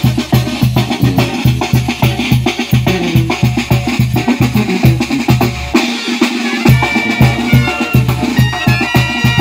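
Mexican brass band (banda) playing, driven by a steady bass-drum and snare beat. The low drum drops out for under a second about six seconds in, and held brass notes come in near the end.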